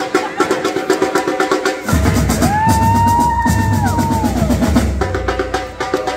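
Drumline of snare and bass drums playing a fast, driving pattern, with a deep bass beat coming in about two seconds in. Over the middle a long, high held tone bends up and then falls away.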